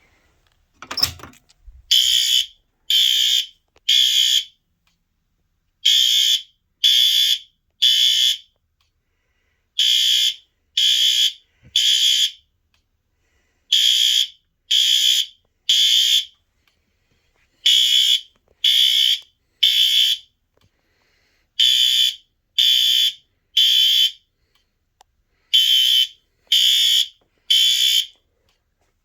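System Sensor L-Series fire alarm horns sounding the temporal-3 evacuation code: three loud half-second beeps, then a pause, repeating every four seconds. The horns start about two seconds in, just after a short knock.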